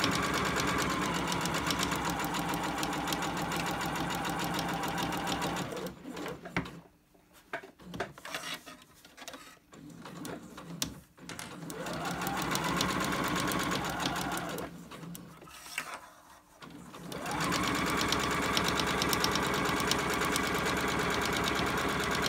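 Domestic electric sewing machine stitching a seam through layered fabric and waterproof PUL, running in three spells that each speed up as they start. Quieter pauses between the spells hold small clicks and fabric handling.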